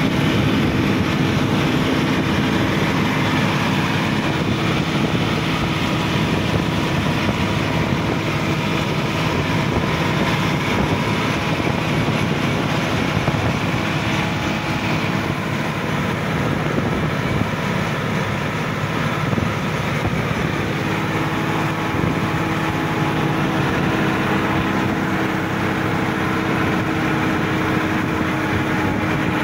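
Sonalika DI-50 RX Supreme tractor's diesel engine running steadily as the tractor is driven at road speed, with road and wind noise.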